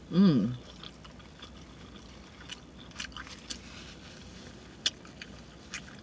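A short hummed 'mmm' through a closed, full mouth, its pitch rising then falling, followed by soft wet chewing of a breakfast crepe with scattered lip-smacking clicks.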